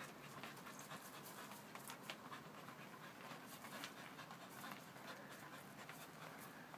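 A corgi panting faintly as it works a ball with its front paws, with light scuffing taps scattered throughout.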